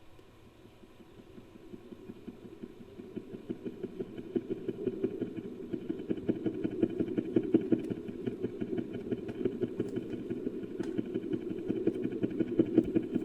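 Designed creature call for a South Island giant moa: a low, rapidly pulsing rumble that swells in over the first few seconds, holds steady, then cuts off suddenly near the end.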